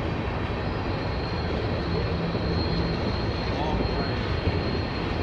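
Freight train tank cars rolling past, a steady rumble of steel wheels on rail.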